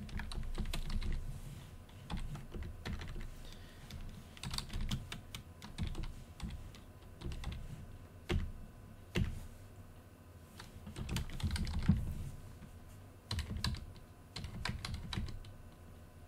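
Typing on a computer keyboard: runs of keystroke clicks in short bursts, with brief pauses between them.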